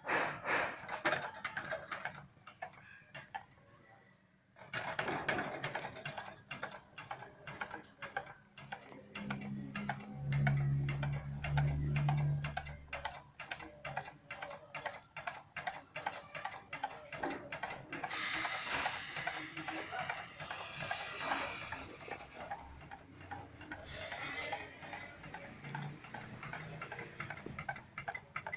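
Small homemade Stirling engine running, its moving parts clicking in a fast, even rhythm. The clicking stops briefly a few seconds in, and a louder low hum comes in for a few seconds around the middle.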